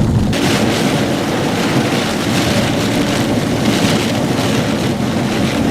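Heavy thunderstorm rain and wind, a loud steady hiss that comes in abruptly just after the start.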